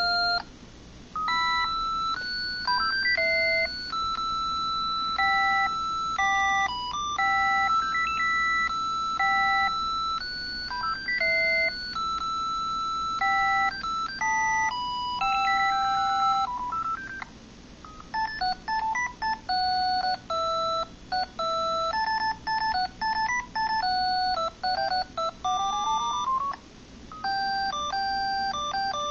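Audiovox CDM-9150X cell phone playing its built-in ringtones: beepy single-note jingles, one tune after another with short breaks between them, including a quick rising run of beeps near the end.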